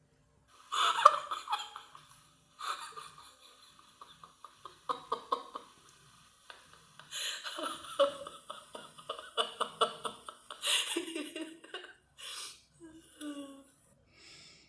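A woman laughing in several bouts, each a quick run of ha-ha pulses with breaths between. The laughter starts about half a second in and trails off into short, breathy giggles near the end.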